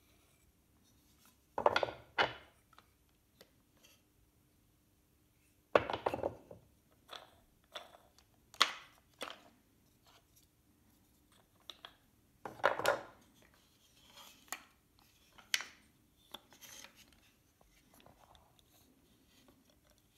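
Wooden parts of a hand-built model gearbox knocking and clacking as they are handled and set down: scattered light clicks, with louder clusters of clacks about 2, 6, 9, 13 and 15 seconds in.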